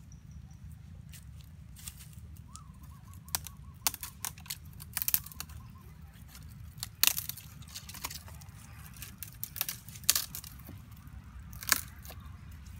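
Twigs and small branches snapping and leaves tearing as they are broken off a sapling by hand: a run of sharp, irregular cracks over a low steady rumble.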